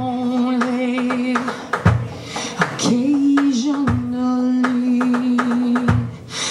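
A woman singing long held notes over a live jazz band's drums and bass guitar, with sharp drum and cymbal hits between the phrases.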